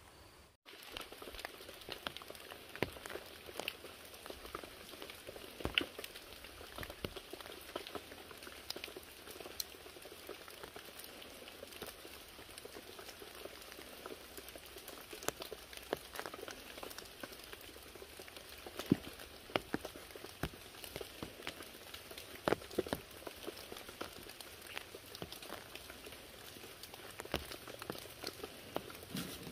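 Irregular patter of water drops dripping onto the leaf-thatched hut roof and surrounding foliage, with occasional sharper, louder drips. It cuts in suddenly about half a second in.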